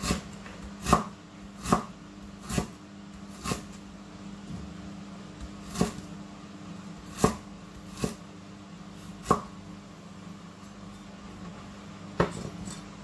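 Kitchen knife chopping through food onto a cutting board in single strokes, about ten sharp knocks spaced unevenly, with a long gap in the middle. A steady low hum runs underneath.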